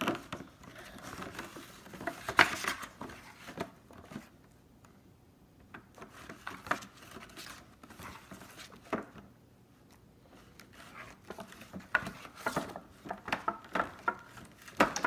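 Slime being mixed and scraped down in a bowl as the laundry detergent activates it: irregular scraping and clicking in three spells, with quieter pauses between.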